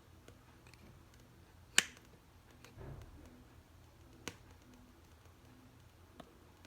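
A few sharp clicks of hard objects handled at a dental lab bench during wax-up of a bruxism splint: the loudest about two seconds in, a softer low knock just before three seconds, and fainter clicks a little past four seconds and near the end.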